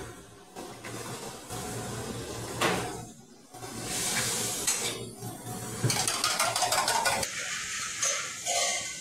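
Cooking at a commercial gas range: metal pans and utensils clattering and scraping over a steady hiss, with a quick run of tapping about six seconds in.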